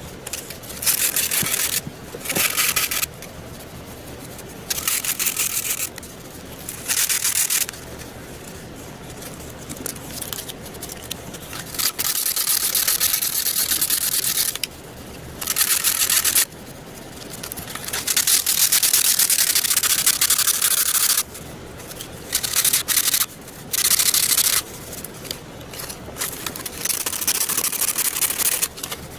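Rough rubbing or scraping noise comes in repeated bursts of about one to four seconds each, with short pauses between them. It sounds like hand work such as sanding on the airframe of a model seaplane being repaired.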